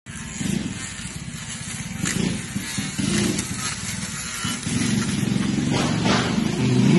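Motorised pole hedge trimmer running as it cuts into a leafy shrub, a steady buzz that swells and dips as the blade goes in and out of the foliage.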